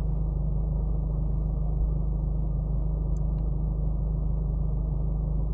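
Mercedes-Benz E-Class (W213) engine idling, a steady low rumble heard inside the cabin, with a faint click about three seconds in.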